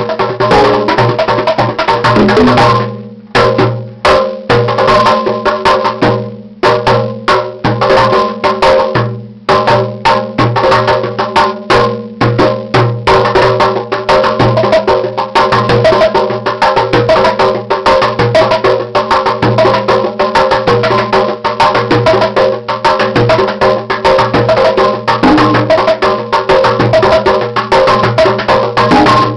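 Fast hand-drumming jam on water bottles played as drums, with bongos, djembes, a wooden bongo and a cajon, over steady held tones. The drumming breaks off briefly about three, six and nine seconds in, then runs on densely.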